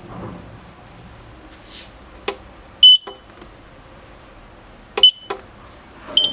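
A four-channel kitchen timer's buttons being pressed, with sharp clicks and three short, high beeps confirming the key presses while its time is set.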